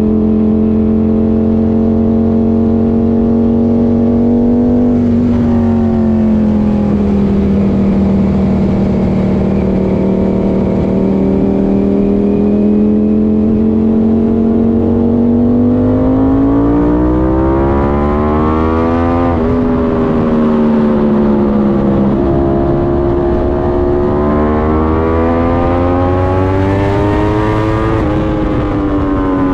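Ducati Panigale V4's V4 engine pulling along at steady revs, then revving up twice, each climb ending in a sudden drop in revs: once a little past the middle and once near the end.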